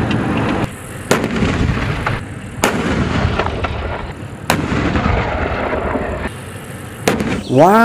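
Battle sound effect of explosions and artillery: a dense crackling rumble broken by four sharp shots a second or two apart.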